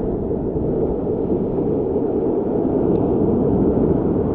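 Strong wind buffeting the microphone: a steady, loud low rumble.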